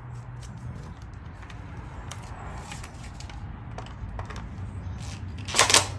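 Scattered light clicks and knocks of hand tools and engine parts being handled, with a short, louder rattle near the end, over a steady low hum.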